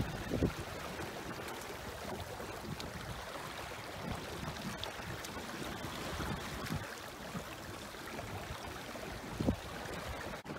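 Water lapping and splashing against the hull of a small sailing dinghy (a Mirror dinghy) under way on choppy water, a steady wash of water noise with some wind. Two brief low thumps come about half a second in and again near the end.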